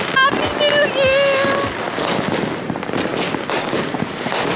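Many fireworks and firecrackers going off at once in a dense, continuous crackling and popping.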